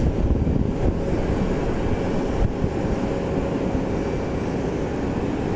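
Twin jet engines of an Airbus A330 at takeoff thrust during the takeoff roll: a steady, heavy rumble with a faint steady whine over it.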